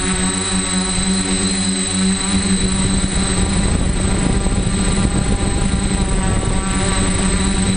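DJI F450 quadcopter's motors and propellers buzzing steadily in flight, heard close from its onboard camera, with a thin high whine over the buzz. A rougher low rumble joins in the middle and fades again.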